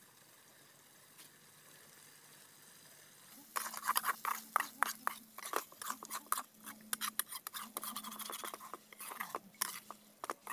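Metal spatula stirring chicken curry in a steel kadai, scraping and clinking against the pan in quick irregular strokes that start about three seconds in.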